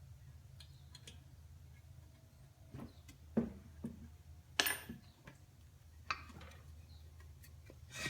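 Scattered sharp metal clicks and clinks of hand tools and parts being handled while dismantling the drill press head's cast-iron motor bracket, the loudest knock about halfway through, over a low steady hum.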